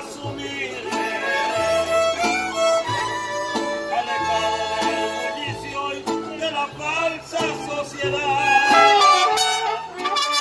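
Mariachi band playing live: violins carry the melody in held, wavering notes over a guitarrón's stepping bass and strummed vihuela.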